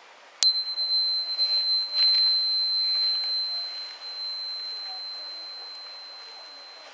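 Metal tuning fork struck once about half a second in, then ringing a single high, steady tone that slowly fades away.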